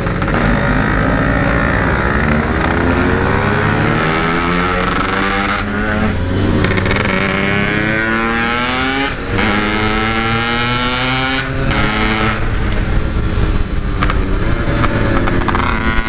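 Yamaha RX-King's two-stroke single-cylinder engine, fitted with a Packing Power 'standart belek' exhaust, accelerating hard. Its pitch climbs several times, with a short drop between climbs as the throttle comes off, as at gear changes.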